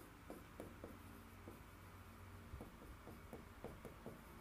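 Faint handwriting on a board: light pen strokes, each giving a small tick, several a second, over low room hum.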